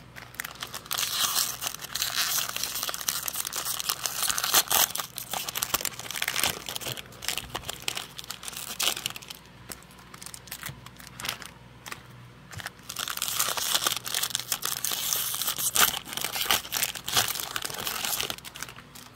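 Plastic wrappers of Panini Prizm basketball card packs crinkling as they are handled and pulled open, in two long spells of rustling with quieter handling between.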